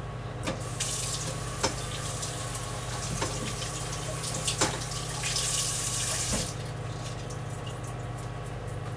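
Kitchen tap running into a sink while asparagus spears are rinsed under it, with a few knocks and clatters. The water is strongest a little past the middle and shuts off about two-thirds of the way through.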